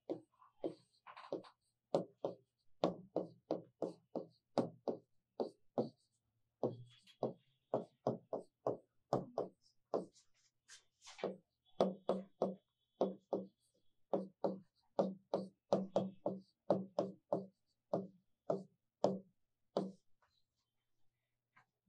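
Chalk writing on a blackboard: a run of short taps and strokes, about two to three a second with brief pauses, stopping near the end.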